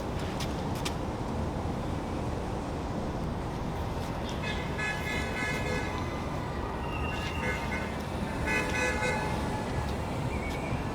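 Steady car or traffic noise with a vehicle horn sounding twice: first for about two seconds, then for about a second.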